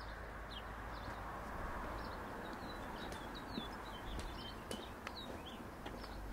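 Small birds chirping in quick short calls, over a low steady outdoor background noise with a few faint clicks.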